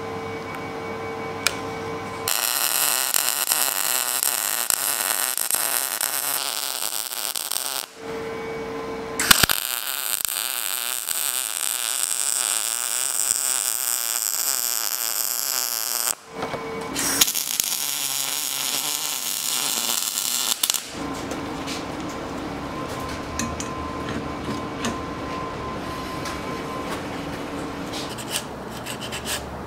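MIG welder arc on steel: a harsh, crackling hiss in three runs of about six, seven and four seconds, each starting and stopping abruptly. After the third run there is a quieter, lower sound with faint steady tones.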